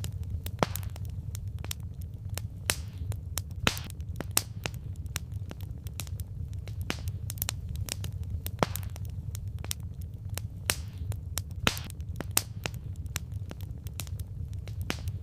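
Campfire logs crackling: irregular sharp pops and snaps over a steady low rumble of the burning fire.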